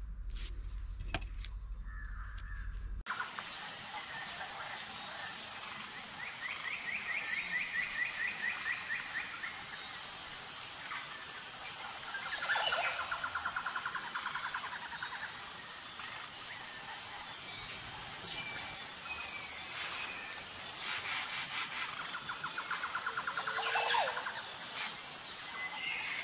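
Outdoor rural background with birds calling, several short rapid trills, over a steady high-pitched whine and a background hiss. The background starts suddenly a few seconds in, after a few soft clicks.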